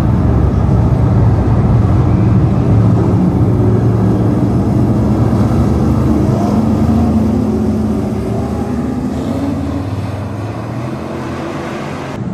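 A pack of dirt-track super stock race cars running at speed, several engines together with pitch that rises and falls as they go around. Loudest over the first half, then easing off somewhat as the pack moves away.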